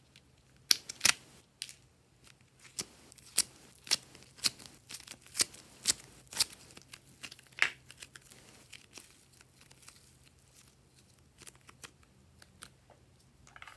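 Glossy slime being kneaded and pressed by hand, giving a run of sharp clicks and pops, about two a second, which thin out after about six seconds.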